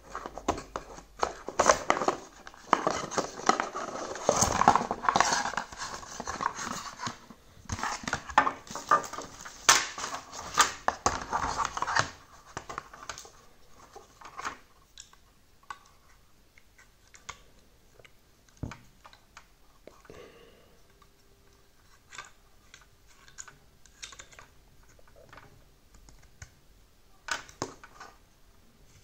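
Hands handling cardboard and plastic packaging, dense scraping and rustling for about twelve seconds as parts are lifted out of the box. Then sparse clicks and taps of a plastic power adapter being handled, with a few sharper clicks near the end as a plug piece is fitted onto it.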